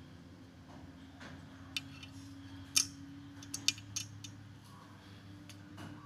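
A string of short, sharp metal clicks and taps from a Sanrenmu 4079 folding pocket knife being handled, its blade closed and the knife laid on a wooden table. The loudest click comes near the middle, and a quick cluster follows.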